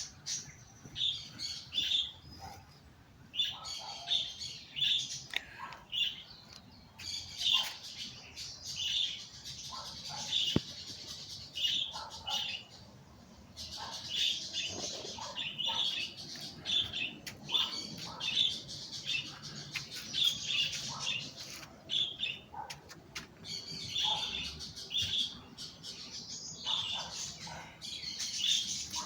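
Birds chirping: a steady chorus of short, high calls repeated many times over.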